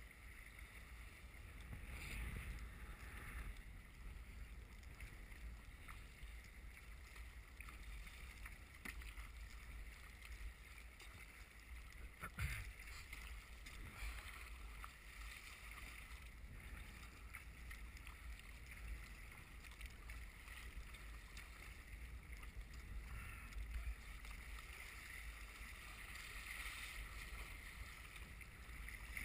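Water splashing and rushing along the hull of an Eddyline Raven sea kayak in choppy, wind-driven waves, with strong wind rumbling on the microphone and paddle strokes in the water. A single sharp knock about twelve seconds in.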